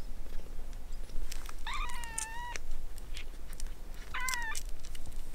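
Newborn kitten mewing twice, a longer high cry and then a shorter one, while it searches for a teat to nurse.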